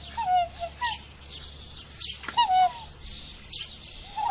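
Swan calling: short calls that drop slightly in pitch, repeated every second or two, with small birds chirping higher up.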